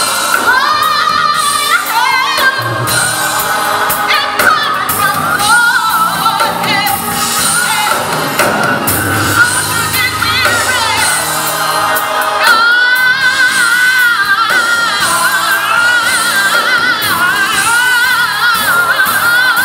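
Gospel choir singing, with a woman soloist leading on microphone over the full choir; sustained melodic lines with vibrato.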